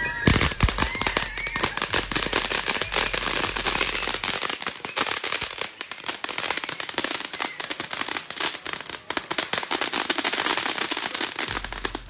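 Small ground fountain firework spraying sparks with dense, continuous crackling, with a few louder pops in the first second.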